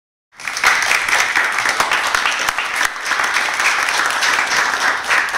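Audience applauding, the clapping cutting in abruptly a moment in and holding steady.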